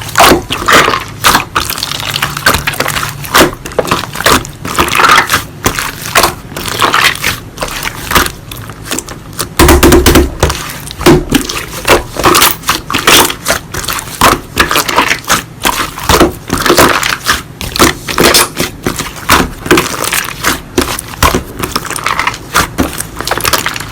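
Slime being pressed, squished and stretched by hand, giving a fast, irregular run of sticky clicks, pops and crackles.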